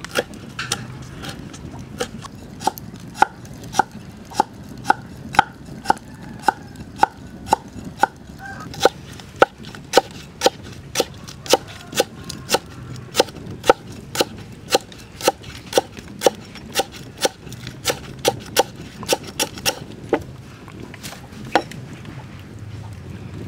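Cleaver slicing lemongrass thinly on a wooden chopping block: a steady run of sharp knocks, about two a second, thinning out to a few stray knocks near the end.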